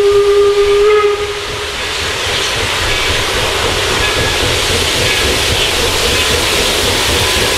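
Steam whistle of the 4-4-0 'American' steam locomotive York #17, one held note that cuts off about a second in. Then the locomotive's steady working noise, a rush with a low rumble, growing a little louder as it comes on toward the camera.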